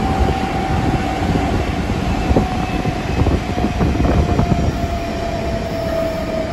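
Nagoya Municipal Subway 6000-series train running underground, heard from inside the car: a steady rumble of wheels on rail with a few clacks, and a whine that slowly falls in pitch as the train slows when arriving at the next station.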